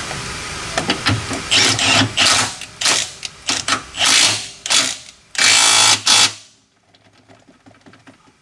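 A power tool runs in several short bursts, with sharp clicks and knocks between them, then stops about six and a half seconds in.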